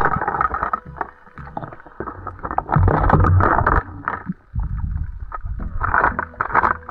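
Underwater sound picked up through an action camera's housing: water rushing and rumbling over the camera as the spearfisher moves, with scattered clicks and knocks while the spear works at the reef. The rumble is heaviest about three seconds in.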